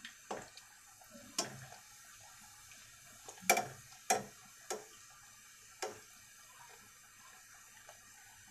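Luchi deep-frying in hot oil in a small karai: a faint steady sizzle, broken by several sharp clicks and pops at uneven intervals, the loudest about three and a half seconds in.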